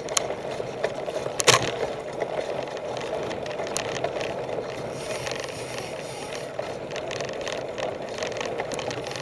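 Mountain bike riding fast down a bumpy dirt trail: steady tyre and riding noise with the bike rattling and clicking over bumps, and one sharp knock about one and a half seconds in.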